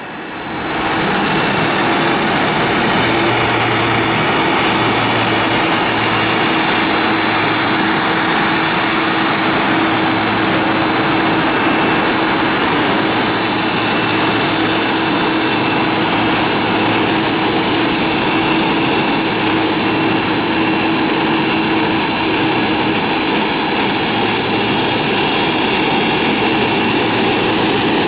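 Boeing 767-200ER's twin turbofan engines at taxi power as the jet rolls past close by. It is a steady, loud rush of jet noise with a high-pitched whine and a lower hum, swelling in over the first second.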